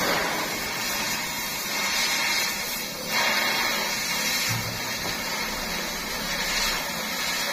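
Steady whirring, hissing noise of machinery or a power tool running, with no distinct strikes.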